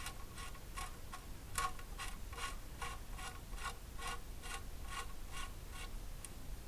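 Ratchet wrench clicking steadily, about two and a half clicks a second, as it runs the 19 mm oil drain plug back into the oil pan of a 2007 VW Beetle.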